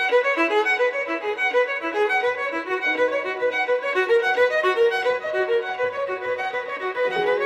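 Background music led by violin, playing a quick, even run of short notes, with a longer held note coming in near the end.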